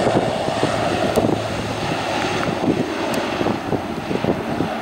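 British Aerospace ATP turboprop freighter running at take-off power as it rolls and lifts off. A steady engine and propeller noise is mixed with heavy wind buffeting on the microphone.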